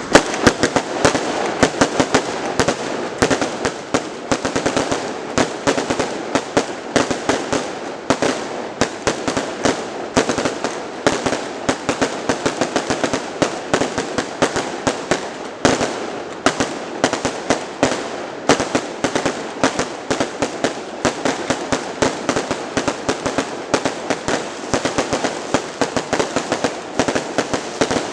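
Fireworks display in a dense, unbroken barrage of bangs, several sharp reports a second over a steady crackle.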